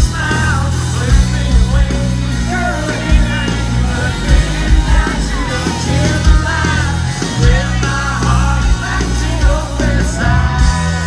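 Live country band playing at full volume: singing over acoustic and electric guitars, a heavy bass line and a steady drum beat, heard from within the audience.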